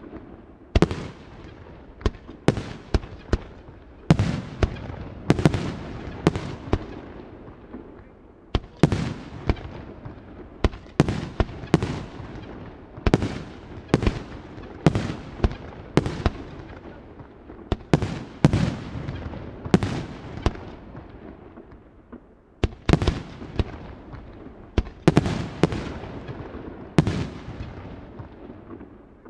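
Aerial firework shells bursting in quick succession: sharp bangs about one or two a second at uneven intervals, each trailing off in an echo, with a couple of short lulls.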